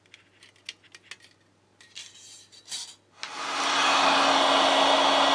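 A few light clicks and taps of handling the thin metal shield. About three seconds in, a hot air gun switches on and blows with a steady rush of air over a low, even hum.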